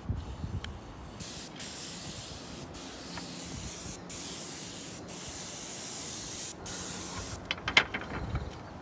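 Spray gun spraying primer onto roof tiles: a steady hiss, broken by several short breaks, that stops a second or so before the end. A brief, sharper sound follows near the end.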